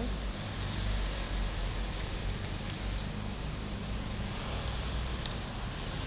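Steady outdoor background noise: a low rumble and a high hiss that swells now and then, with one sharp click about five seconds in.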